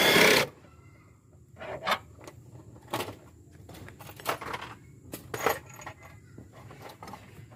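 Hand tools and loose bolts clinking against metal while an engine mount is unbolted: a short loud clatter at the start, then scattered light metallic clinks and taps.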